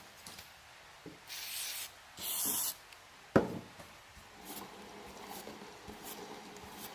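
Two short hisses of an aerosol can of WD-40 being sprayed, then a single sharp knock, with light brushing and rubbing on the old grinding-stone frame around them.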